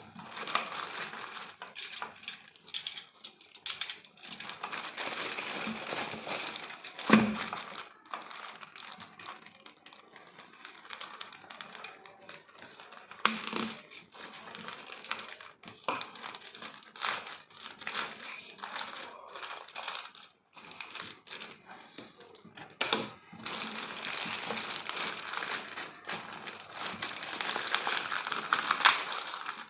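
Packaging of a glue gun and glue sticks being unwrapped and handled: continuous crinkling and rustling with scattered clicks and knocks, the loudest knock about seven seconds in.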